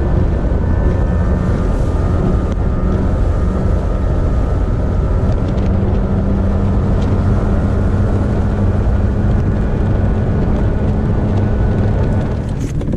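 Outboard motor of a fishing boat running steadily at speed, loud, with a dense rush of noise under the engine note, easing slightly near the end.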